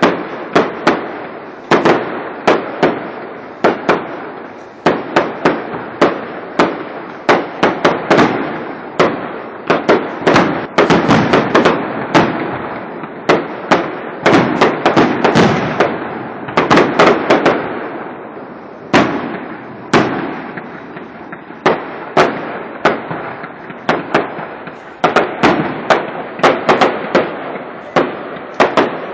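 Fireworks display: a rapid, unbroken string of sharp bangs, several a second, each trailing off in a rolling echo, at its thickest about halfway through.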